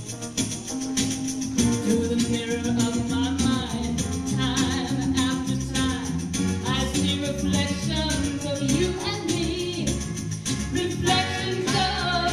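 A woman singing into a handheld microphone over instrumental accompaniment with a steady beat and a moving bass line.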